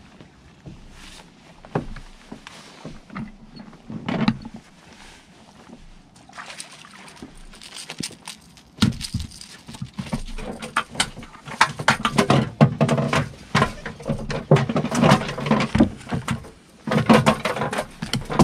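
Close handling noise as a just-caught speckled trout is fought, lifted and held on the line: a few knocks at first, then from about eight seconds in a dense run of clicks, knocks and rustles that is busiest near the end.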